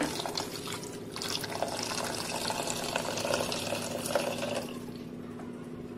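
Water pouring and splashing into a steel pot of chopped vegetables, tapering off about three-quarters of the way in, over a faint steady hum.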